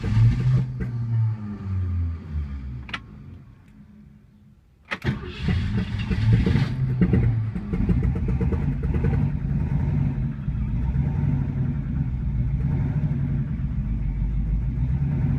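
A 1965 Ford Mustang's 289 V8 with a Lunati Voodoo cam, just started cold. It runs roughly, sags in pitch and dies about three seconds in. About five seconds in it is cranked again, catches with a rev, and settles into a steady idle.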